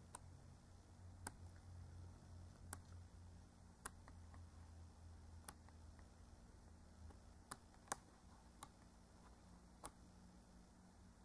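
Near silence with a low hum and a scattered series of faint, sharp clicks from handling and turning the pages of a small glossy art booklet.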